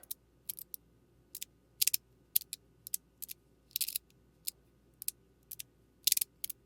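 A small metal fidget slider being pushed back and forth, giving sharp clicks about two a second as the slide hits its stops, a few of them drawn out into short scrapes.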